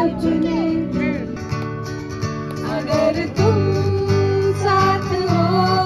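Music: an acoustic guitar accompanying a woman singing into a microphone, with long held, slightly wavering sung notes. The music changes abruptly about three and a half seconds in.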